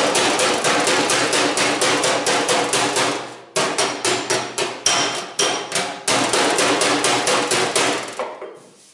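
Homemade slapper made from a leaf spring rapidly slapping a sheet-steel panel to straighten it, about five blows a second with the metal ringing between strokes. The blows pause briefly twice and trail off near the end.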